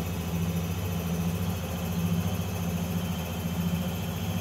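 A steady low mechanical hum of a running motor, unchanging in level.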